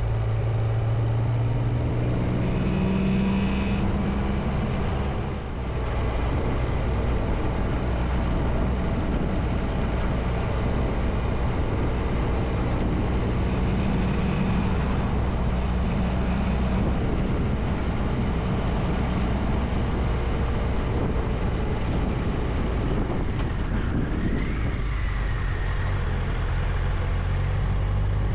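Triumph Tiger 1200's three-cylinder engine running under way, heard from on the motorcycle, its note rising and falling. An oncoming car passes about halfway through.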